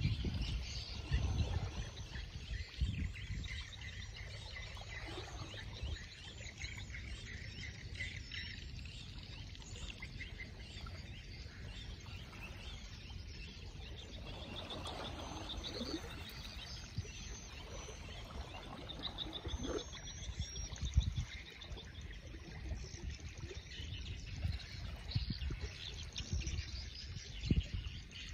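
Outdoor ambience of small animals calling: many short repeated chirps and trills over a low rumble.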